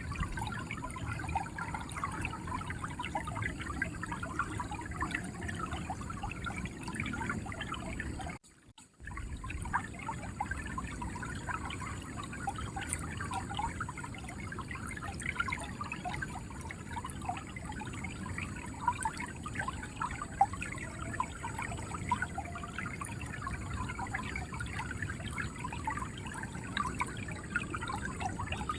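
River water flowing and gurgling steadily over rocks, a continuous babble of small splashes. The sound drops out for about half a second roughly eight seconds in, then resumes.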